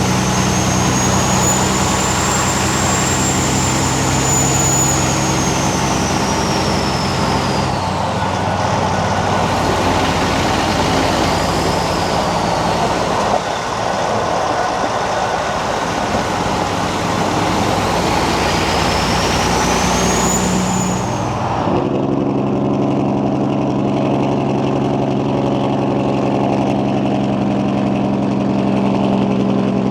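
Peterbilt 379 semi truck's diesel engine running under load with a high turbo whistle that wavers, fades about eight seconds in, then climbs again before cutting off about 21 seconds in. The engine then keeps running at a lower, steady note.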